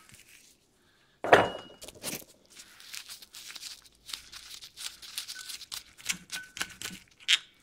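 A sharp metal knock about a second in, then a run of small, irregular metallic clicks and scrapes as a nut is turned off the threaded axle of a bicycle CVT hub by gloved hands.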